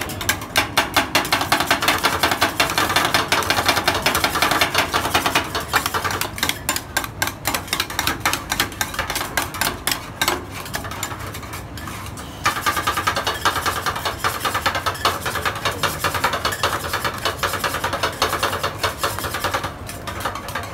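Two metal spatulas rapidly chopping and tapping on the frosted steel cold plate of a rolled-ice-cream pan, mixing ice cream base as it freezes. A fast clatter of metal strikes that eases off briefly a little past halfway, then starts up again.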